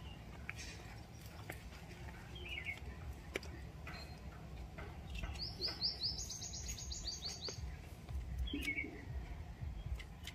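Birds calling: a couple of short chirps, and about halfway through a fast trill of a dozen or so high notes lasting about two seconds, over a low steady rumble.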